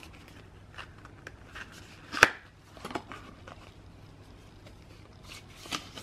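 Stiff card packaging and postcards being opened and handled: paper rustling and sliding with scattered taps, the sharpest about two seconds in.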